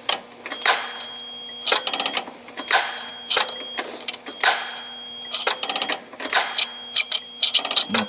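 Forklift starter clicking in repeated rattly bursts as the truck is cranked.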